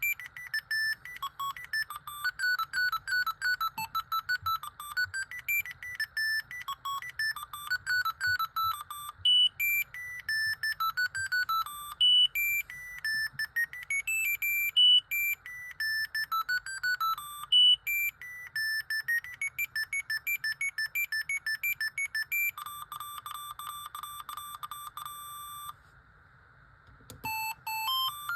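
Siemens A55 mobile phone playing its ringtones through its small speaker, one beeping note at a time in a quick melody. Near the end the tune turns to rapid beeps on one pitch, stops for about a second, and the next ringtone starts.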